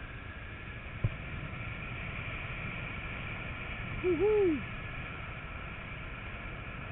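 Steady wind rushing over an action camera on a paraglider in flight. There is a sharp click about a second in, and about four seconds in a short tone of unknown source rises and falls over about half a second.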